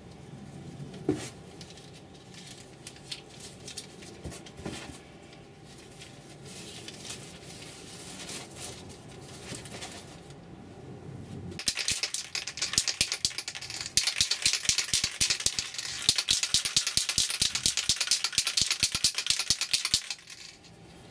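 Aerosol spray-paint can shaken hard, its mixing ball rattling rapidly for about eight seconds from roughly twelve seconds in, to mix the paint before spraying. Before that come scattered light clicks and knocks from the can being handled.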